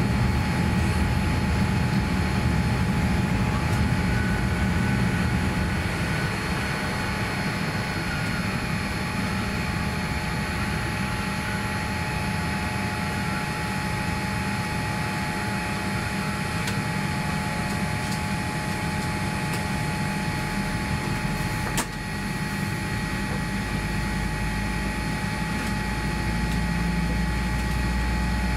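Steady cabin noise inside a Boeing 787-9 airliner during pushback: an even air-conditioning hum with a few thin steady whine tones over a low rumble. A single sharp click comes about three-quarters of the way through, and the low rumble grows stronger near the end.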